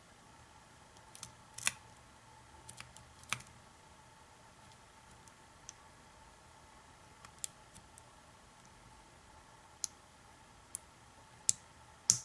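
Hook pick and pry-bar tension tool working the pin stack of an American 700 series padlock held in a vise: sparse, irregular small metallic clicks and ticks, a few at a time, over a faint steady hum.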